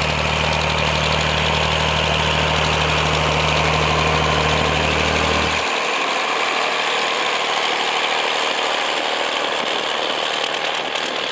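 John Deere 5020's six-cylinder diesel engine running steadily under load as the tractor pulls a harrow. A little over halfway through, the deep low engine tone cuts off suddenly, leaving a thinner, higher engine and rattling sound with fast fine ticking near the end.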